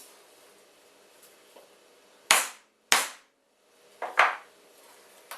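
Hammer blows on a softwood block, tapping a bearing into its hole: two sharp knocks a little over half a second apart, then a quick double knock about a second later.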